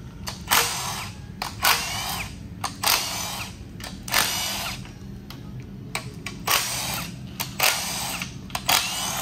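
Cordless impact wrench spinning bolts out of an engine block in short bursts, about seven, each a quick whine that rises and falls in pitch, with a pause about halfway through.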